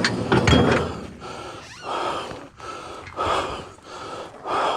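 A man breathing hard and gasping, about four heavy breaths each a little over a second apart: out of breath from heavy lifting.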